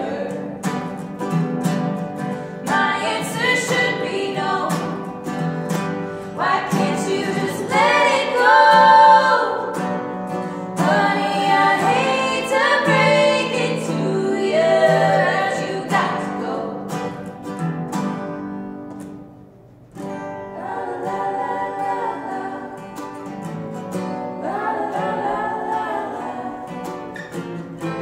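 Women singing over strummed steel-string acoustic guitars. The music thins out and dips briefly about two-thirds of the way through, then comes back in.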